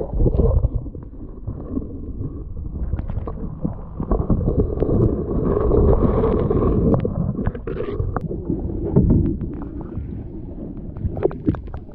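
Muffled sound of water over a camera's microphone held under the surface: a low, dull rushing and sloshing that swells and fades, with scattered small knocks and clicks.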